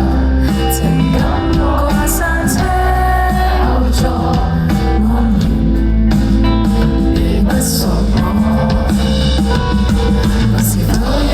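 Live indie-pop band playing a song, with drums, guitar and bass, and singing.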